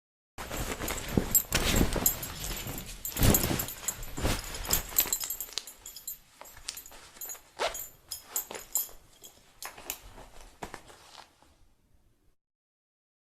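A peeing sound effect from a Gacha video playing: an uneven noisy sound full of sharp clicks. It starts about half a second in and cuts off abruptly after about eleven seconds.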